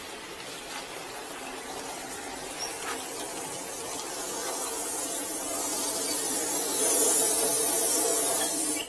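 Pressurised water hissing as it sprays in a fine mist from around the loosened valve fittings of stainless-steel drinking-fountain faucets, with water also running from the spout. The hiss grows steadily louder and cuts off suddenly near the end.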